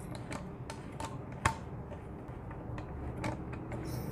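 Legends Cowboy Rifle CO2 air rifle's butt-stock cylinder cap being screwed tight by hand: a string of irregular small clicks and ticks, the loudest about one and a half seconds in. Near the end comes a brief hiss as the 12-gram CO2 cylinder is pierced.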